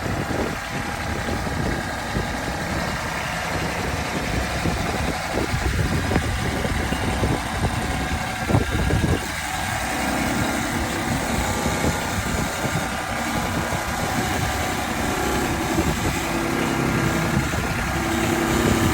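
An engine running steadily at an even speed, its tone shifting slightly about halfway through.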